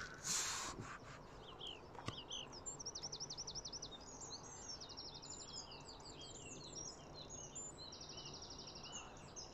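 Songbirds singing, several at once: quick repeated chirps and fast trills. A short loud rustle comes just after the start.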